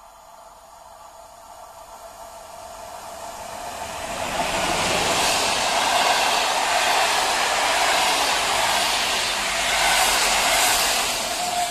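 PKP Intercity passenger train, an EP09 electric locomotive hauling a rake of coaches, approaching and passing close by without stopping. A rush of wheels on rails rises over the first few seconds, becomes loud about four seconds in and stays steady as the coaches roll past, easing slightly near the end.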